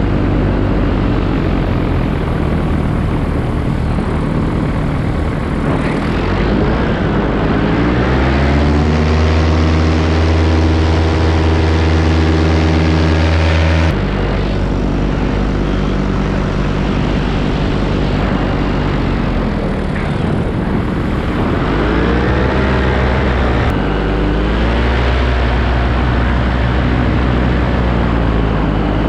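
Paramotor engine and propeller running in flight. The pitch climbs over a few seconds as the throttle opens, holds high, drops abruptly about halfway, then sinks and climbs again in the last third.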